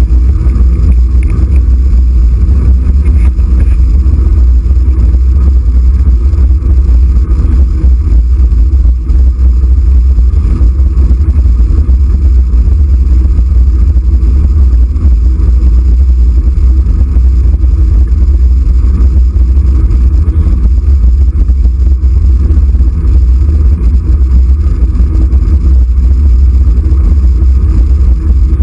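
Steady loud low rumble of wind and road noise on the microphone of a handlebar-mounted camera while riding at a constant speed.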